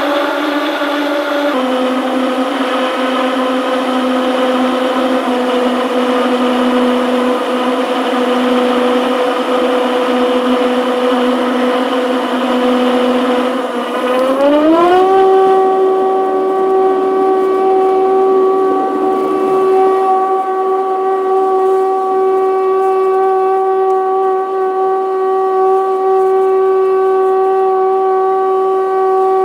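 Dash 8 turboprop engine and propeller heard from inside the cabin during takeoff: a loud, steady propeller drone that about halfway through rises quickly in pitch and then holds at the higher pitch as the propellers speed up for the takeoff run.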